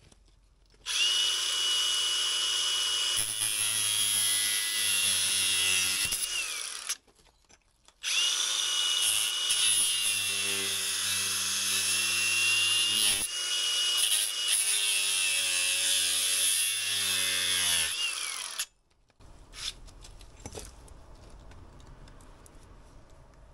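Cordless angle grinder cutting, run twice: about six seconds, a short pause, then about ten seconds. Each run has a steady high whine that drops in pitch as the disc winds down.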